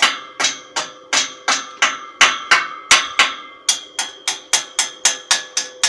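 Hammer striking metal over and over, about three blows a second, each blow leaving a short metallic ring.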